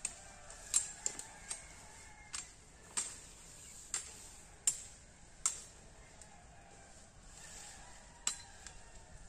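Machete chopping at tree branches: about ten sharp, separate knocks at irregular intervals, a second or so apart.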